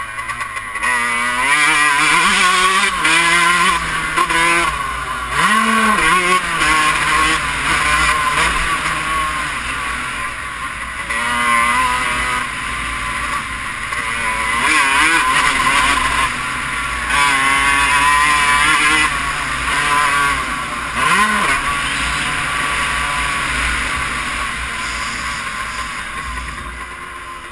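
Motocross bike engine revving hard as the bike is ridden round a dirt track. The pitch climbs again and again as it accelerates and drops sharply when the rider shifts or backs off the throttle, over a steady low rumble. The engine eases off near the end.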